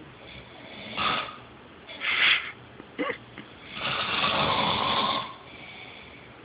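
A man snoring in his sleep: short snorts about one and two seconds in, a brief one near three seconds, then a longer snore lasting about a second and a half.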